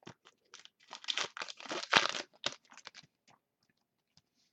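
A trading-card pack's foil wrapper being torn open and crinkled, in quick crackling bursts for about three seconds that then die away to a few light rustles.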